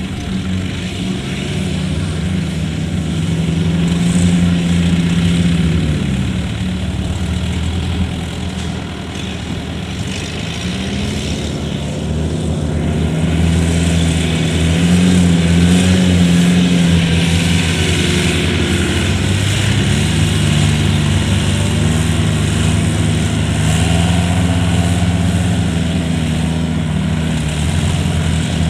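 Kubota DC70 combine harvester's diesel engine running under harvesting load, with mechanical threshing noise; the engine note dips and climbs back several times as the load on the machine changes.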